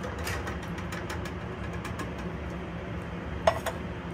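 A can of chili beans being emptied into a stainless steel stockpot: a run of light clicks and taps of metal on metal, with one louder ringing clank about three and a half seconds in, over a steady low kitchen hum.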